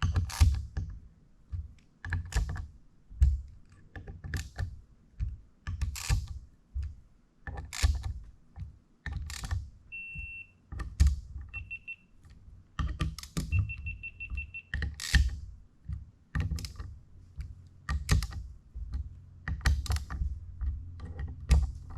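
Hand tools and steering-rack parts clicking and clacking as they are handled on a workbench, in irregular separate knocks. Near the middle come short electronic beeps: a single beep, another shortly after, then a quick run of about six.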